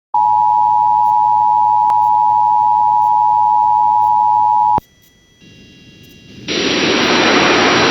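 Emergency Alert System two-tone attention signal, two steady high tones sounding together as one loud beep for about four and a half seconds, then cutting off sharply. About a second and a half later a loud steady hiss comes in.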